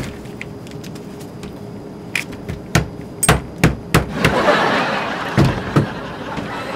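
A series of sharp knocks and bangs on an airliner lavatory door, about half a second apart. They give way to a few seconds of steady noise, with two more knocks in it.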